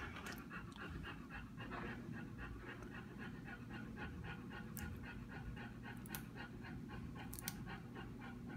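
Bulldog panting rapidly and evenly, about four pants a second. A few faint sharp ticks come in over it.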